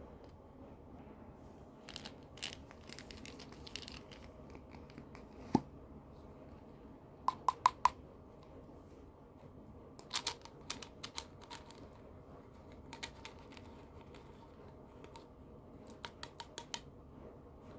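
Candy packaging being handled and opened: scattered plastic crinkles and sharp clicks in short runs, with a single low thud about five and a half seconds in and four quick clicks about two seconds later.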